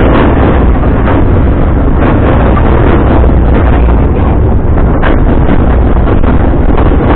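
Wind buffeting the microphone over the steady rumble of an open narrow-gauge passenger car rolling along the track behind Porter locomotive #58, with scattered light knocks.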